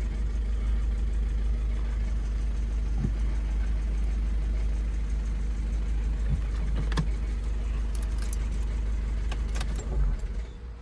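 Volkswagen Golf 7 2.0-litre engine with automatic gearbox idling steadily with a deep low hum, with a few light clicks and rattles over it. It carries the noise the owner puts down to the flywheel. The sound falls away near the end.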